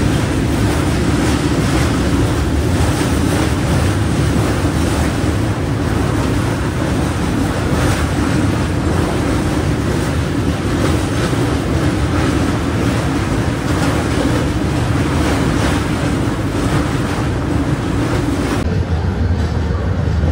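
Express passenger train running at speed, heard at an open coach door: a loud, steady rush of wind mixed with the rumble of wheels on the rails. Near the end it cuts off abruptly to a lower, duller hum.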